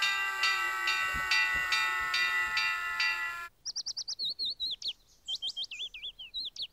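A bell-like music cue with held notes over a steady pulse cuts off suddenly about three and a half seconds in. A small songbird then chirps in quick, high tweets that rise and fall.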